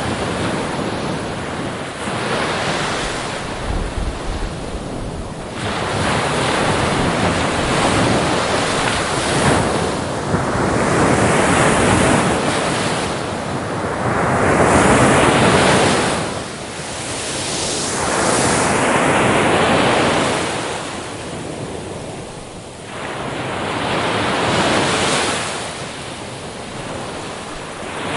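Sea waves breaking on the shore and washing back in slow, overlapping swells, each surge rising and falling over a few seconds, with some wind noise on the microphone.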